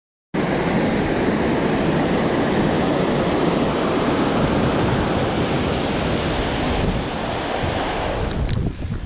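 Fast-flowing mountain stream crashing down a rocky waterfall: a steady, loud rush of white water. Wind buffets the microphone, adding a low rumble. It cuts in suddenly just after the start.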